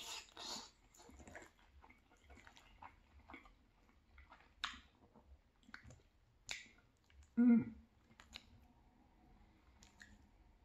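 Close-up chewing of soft, cheesy penne pasta: wet mouth sounds and small clicks, with a short hum from the eater about seven and a half seconds in. Near the end the fork scrapes and clinks in the frying pan.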